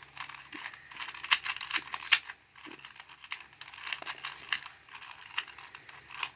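Plastic 2x2 puzzle cube being turned by hand: quick, irregular clicking and rattling of the layers, in flurries with short pauses between them.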